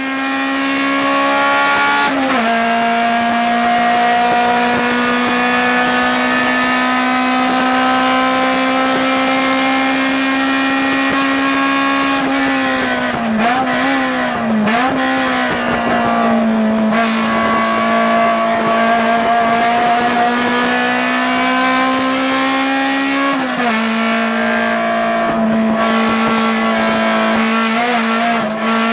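Acura RSX Type S 2.0-litre four-cylinder engine running hard under race load, heard from inside the stripped, roll-caged cabin. Its note climbs slowly and drops back twice, once a couple of seconds in and again about three-quarters through, with a stretch of quick rises and falls in the middle.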